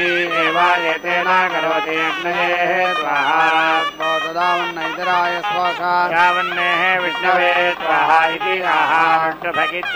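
Carnatic-style devotional temple music: a continuous, heavily ornamented melody line sliding and wavering in pitch over a steady drone.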